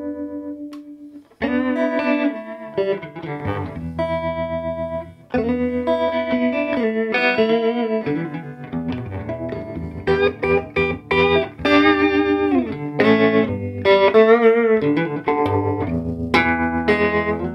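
Electric guitar played through an early-1960s Davoli D531T valve amplifier with its tremolo on the fast setting: picked chords and single notes throb rapidly in volume. The playing breaks off briefly twice early on.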